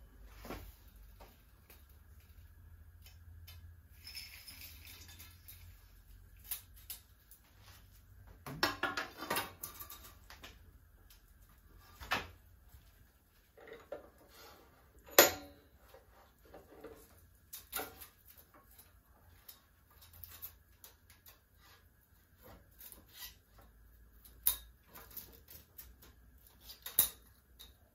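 Scattered metallic clinks and knocks from hands working a metal band saw's vise and a metal workpiece, with a cluster of rattling about eight seconds in and one sharp knock halfway through.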